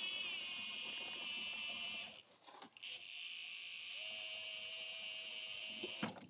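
Cordless power tool running at speed with a high whine, undoing the rear lower shock bolt. It runs in two long bursts with a short pause about two seconds in, and cuts off sharply near the end.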